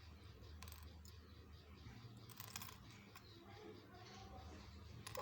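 A few faint, sharp plastic clicks from small toy building pieces being handled, over a low hum.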